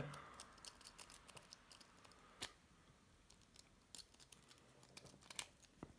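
Faint, scattered small clicks and light scraping of a gun trigger lock being handled and worked open. One sharper click comes about two and a half seconds in, and a cluster of clicks comes near the end.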